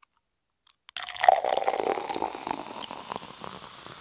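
Channel-intro sound effect: after about a second of silence, a sudden burst of crackling and fizzing that fades away over the following seconds.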